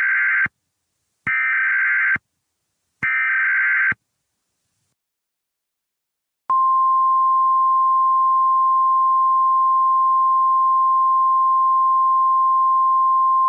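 Emergency Alert System header: the end of one short digital data burst and two more like it, each about a second long, then after a pause of a couple of seconds a single steady alert tone that starts about halfway through and holds.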